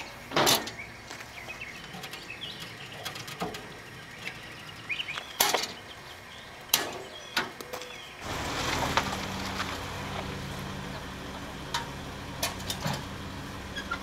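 Door of a heavy metal mailbox being opened and shut, giving a few sharp clicks and clanks. About eight seconds in, a Jeep's engine idles close by with a steady low hum, and a few more clicks come over it.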